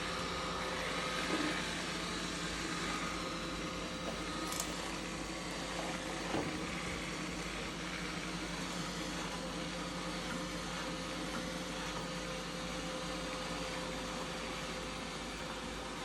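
Robot vacuum running steadily, its motor and brushes whirring, with a couple of brief knocks about four and six seconds in.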